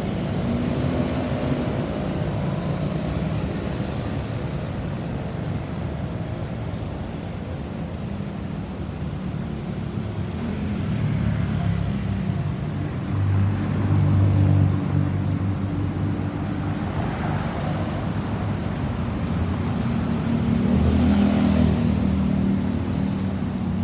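Road traffic: vehicle engines running and passing by, with louder passes about 13 to 15 seconds in and again near the end.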